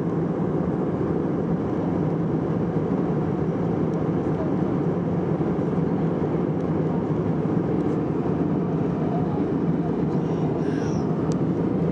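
Steady, unchanging low-pitched cabin noise of an Airbus A319 jet at cruise, heard inside the cabin: engine and airflow noise.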